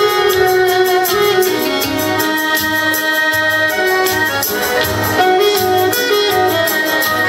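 Live saxophone and piano accordion playing a slow song together, over a steady low bass beat.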